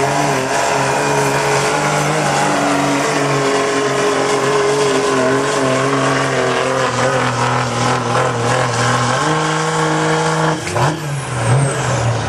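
Turbo-diesel engine of a Cummins-powered Dodge Ram pickup under full load, pulling a weight-transfer sled and holding a near-steady high pitch. About ten and a half seconds in the engine lets off and a high whine falls away as the pull ends.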